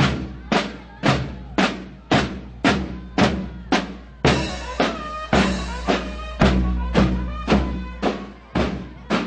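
Marching-band bass drum and snare drums beating a steady march, about two strokes a second, with pitched notes sounding over the beat from about four seconds in.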